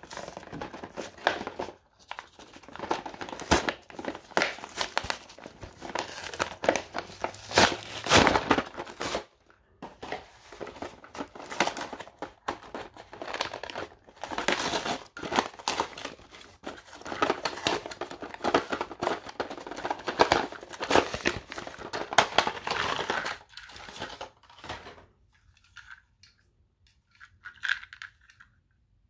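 Cardboard toy packaging being torn and peeled apart from its clear plastic blister, crinkling and tearing in irregular bursts. The tearing stops a few seconds before the end, leaving only a few faint taps.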